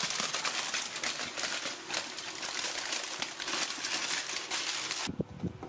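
Aluminium foil being crinkled and pressed by hand, a dense run of crackling that stops abruptly about five seconds in.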